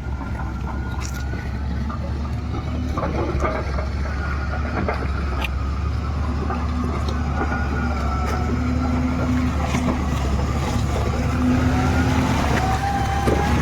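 Heavy machine's engine running steadily with a deep rumble, with a wavering whine over it that rises near the end and scattered clicks and knocks.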